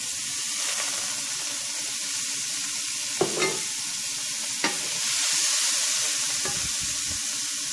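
Chopped onions and celery sizzling in the hot oil and pork-searing drippings of a stainless steel sauté pan as they are sautéed. A few light knocks come a little after three seconds and again near five seconds, and a wooden spatula stirs the vegetables in the second half.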